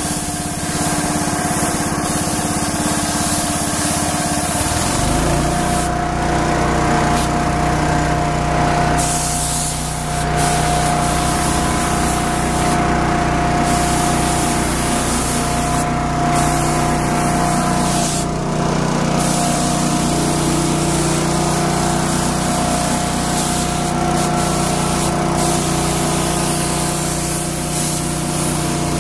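Compressed-air spray gun hissing as it sprays coating, with the trigger released for short breaks several times. Under it an engine runs steadily, settling into a deeper, even note about five seconds in.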